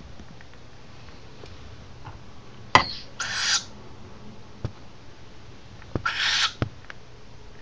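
Downy owlet giving two rasping hisses, its begging call for food, about three seconds apart. A sharp click comes just before the first.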